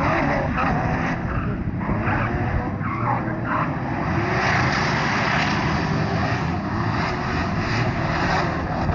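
Drift cars' engines revving up and down as they slide around the course, with the hiss of tyres skidding on wet tarmac, loudest about halfway through.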